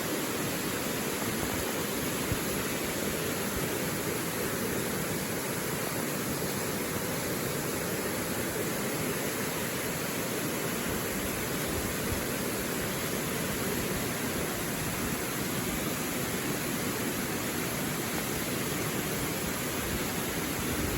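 Rushing water of a mountain stream, a steady, unchanging noise.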